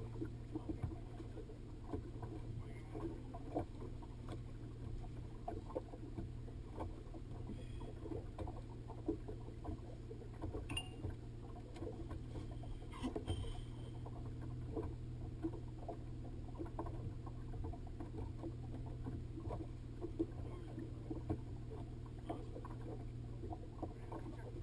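A boat's motor humming steadily, with water lapping and slapping against the hull in many small irregular splashes.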